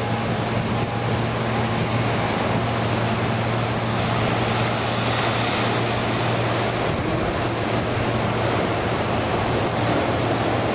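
Surf breaking on the shore and wind on the microphone, under a steady low drone from the distant ATR 72-500's turboprop engines as it slows on the runway after landing; the drone fades about seven seconds in.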